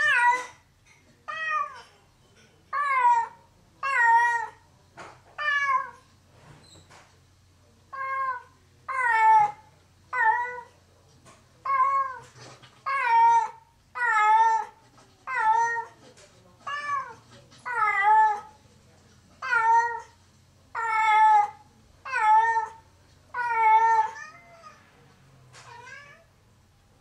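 House cat left alone, meowing loudly over and over, about one long meow a second, each dropping in pitch at its end, with a short pause a few seconds in and fainter cries near the end. This is lonely crying (寂し鳴き), the calling of a cat with separation anxiety for its absent owner.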